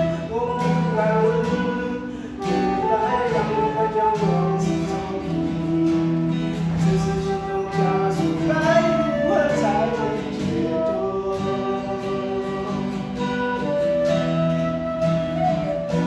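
A man singing a song while accompanying himself on a round-back acoustic guitar.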